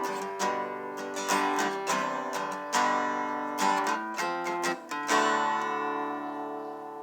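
Acoustic guitar music, with plucked notes and strummed chords. A last chord rings out and slowly fades near the end.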